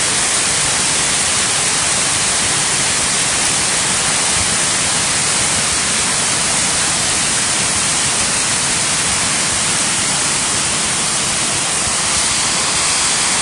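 A creek in flood after heavy rain, high water rushing past in a loud, steady roar.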